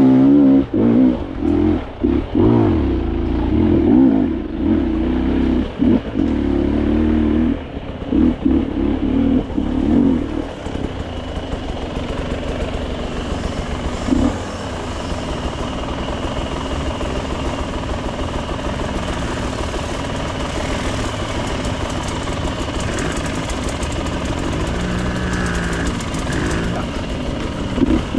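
Off-road dirt bike engine, throttle opened and closed hard in quick bursts for about the first ten seconds, then running steadier and quieter, with a few short revs near the end.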